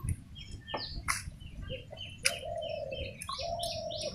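Small birds chirping in quick, short falling calls, getting busier near the end, with a dove cooing in three brief held notes. A few sharp clicks sound in between.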